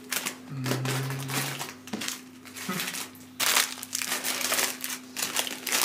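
Plastic snack wrappers crinkling and rustling as packets are pushed into a child's backpack, busiest in the second half. A short hummed voice sounds about half a second in.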